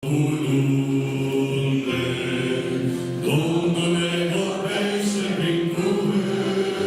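Slow church hymn, with long held notes that change every second or two.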